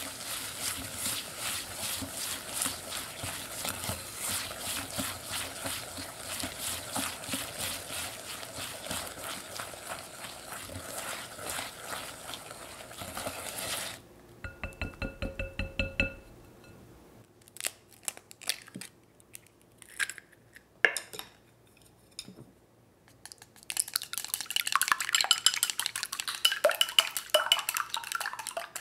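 Wire balloon whisk creaming soft butter and cane sugar in a glass bowl: quick, even scraping strokes for about fourteen seconds. Then come a few knocks of the whisk on the bowl with a short ringing, some scattered clinks, and a last burst of whisking near the end.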